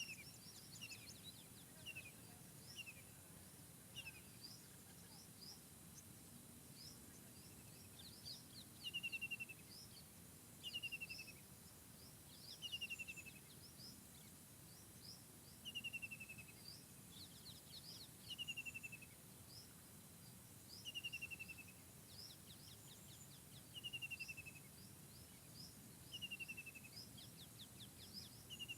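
Faint forest birdsong: one bird repeats a short falling phrase about every two seconds, while others give quick, high chirps, over a low steady background hiss.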